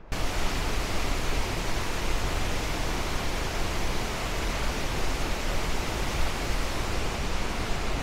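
Steady, even roar of a large waterfall, the Tortum Waterfall in full spring flood from snowmelt.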